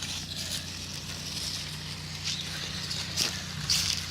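RC truck driving over dry leaves: the leaves rustle and crackle, with several sharper crunches, over a steady low hum.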